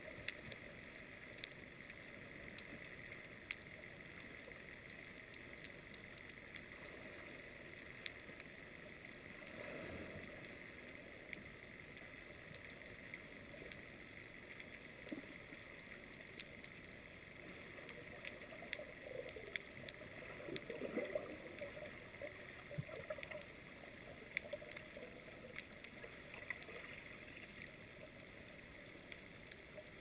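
Faint underwater ambience picked up through a camera on the sea floor: a steady hiss sprinkled with short sharp clicks, with soft low swirls of moving water about ten seconds in and again in the second half.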